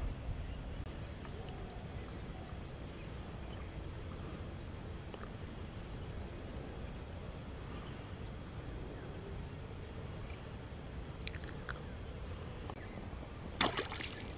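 Steady low wind rumble on the microphone, with faint quick high chirps in the first few seconds. About thirteen and a half seconds in, a short sharp noise burst stands out as the loudest sound.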